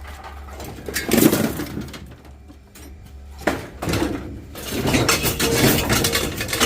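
Scrap being sorted by hand: irregular clattering and knocks of metal pieces being moved and dropped, with a sharp knock about halfway and busier rattling after it.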